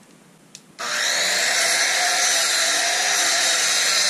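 Electric miter saw switched on about a second in and running at a steady, loud pitch as it cuts a pressure-treated 2x6 board.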